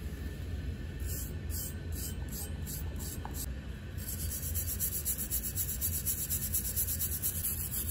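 Hand-held wire brush scrubbing a wet steel hatchet head to loosen rust after an Evapo-Rust soak. A few separate strokes from about a second in, then quick, steady back-and-forth scrubbing from about four seconds in.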